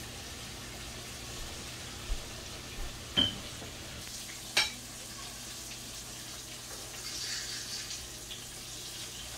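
Floured snapper sizzling as it fries in oil in a frying pan, with a few sharp clicks of a metal utensil against the pan or dish about two, three and four and a half seconds in. The sizzle swells briefly near the end.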